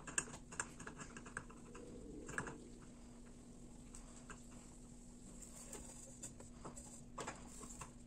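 Faint, scattered light clicks and taps of dishes and kitchen utensils being handled, over a low steady hum.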